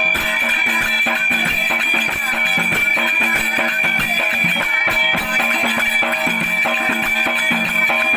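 Instrumental break in a Marathi folk song: a plucked string instrument playing a quick melody over a steady, fast beat.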